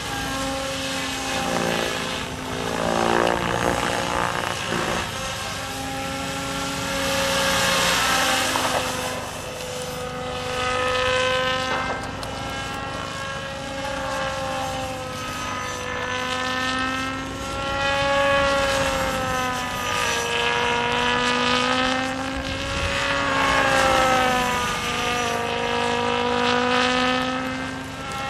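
HD-750 electric RC model helicopter on a 12-cell LiPo flying 3D aerobatics. The whine of its rotor and motor glides up and down in pitch, with a rushing blade swish, and it swells and fades several times as it manoeuvres.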